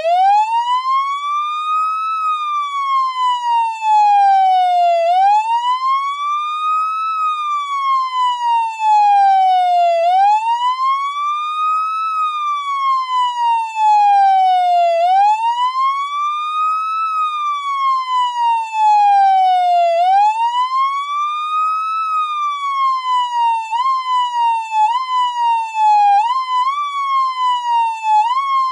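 Federal Signal PA300 electronic siren sounding its wail through the speaker: a buzzy tone sweeps up for about two seconds and slides down for about three, over and over. Near the end it changes to quicker, shorter up-and-down sweeps about once a second.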